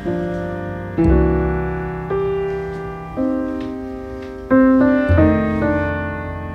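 Background piano music: soft chords struck about once a second, each one fading away before the next.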